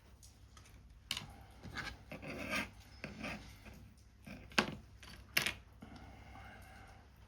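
Papercraft handwork: paper parts being rubbed and scraped, with three sharp clicks of a tool or piece set down, about a second in and twice near five seconds.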